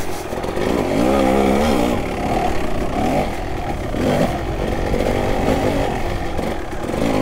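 Kawasaki KX250 dirt bike engine revving up and dropping back in repeated short throttle blips as the bike is ridden slowly over rough trail.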